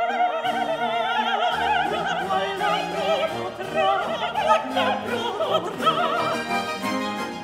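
Operatic voice singing an Italian aria with strong vibrato, in a long stretch without clear words, over an orchestra with strings.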